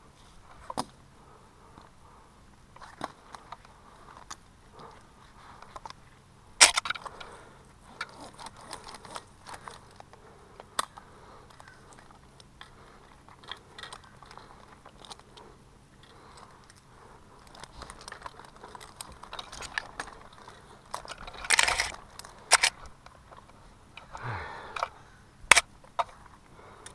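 Scattered metal clinks, knocks and rustles of a tree climber's hardware and rope work, with a few sharper knocks about 7, 21 and 25 seconds in.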